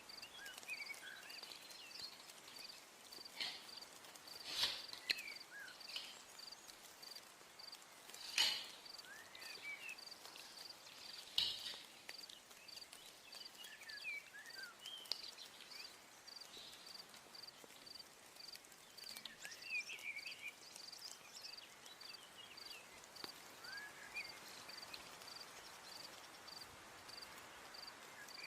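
Faint steady chirping of a cricket, one high pulse about one and a half times a second, with scattered short bird chirps. Three sharp knocks stand out, about five, eight and eleven seconds in.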